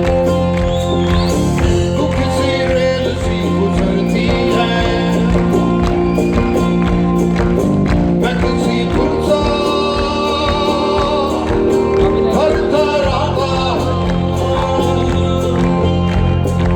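A rock band playing live: a male voice singing over sustained bass and instrument tones, with a regular drum beat.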